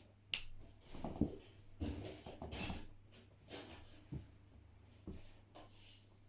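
Faint rustling and a few light clicks and knocks at irregular moments, like small handling and movement noises in a quiet room, over a low steady hum.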